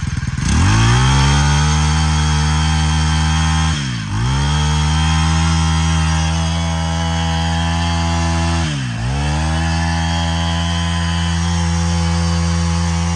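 Honda GX22 22cc four-stroke brushcutter engine running hard. It revs up about half a second in and holds a steady high speed. The throttle is let off briefly twice, about four and nine seconds in, and each time the engine drops and climbs straight back.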